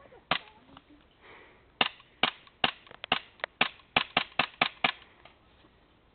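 Gas blowback airsoft pistol powered by propane firing: one shot, then a quick string of about eleven shots.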